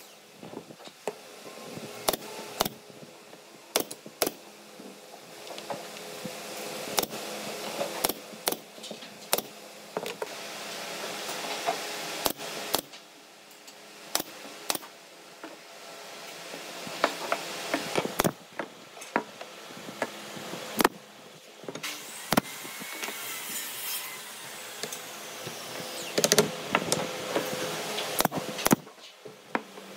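Pneumatic brad nailer firing nails into pine slats: many sharp shots at irregular intervals, over a low steady hum.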